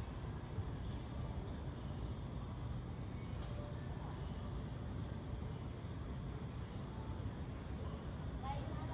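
Crickets chirping in a steady, continuous high trill over a low, even background rumble, with one faint click about three and a half seconds in.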